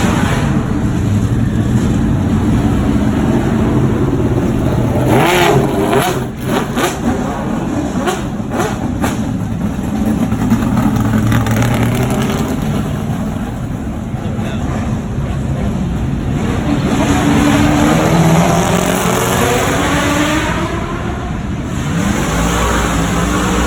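Performance car engines revving hard as cars accelerate past on a hillclimb course, pitch rising and falling as they go by. A cluster of sharp cracks about six to nine seconds in.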